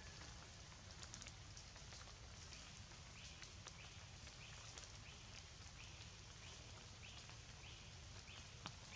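Faint forest ambience: a steady soft hiss with a short high chirp repeated about twice a second through the middle of the stretch, and a few light clicks.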